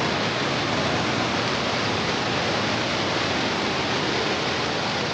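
Muddy floodwater rushing fast over a submerged road and its stones: a steady, even rush of water.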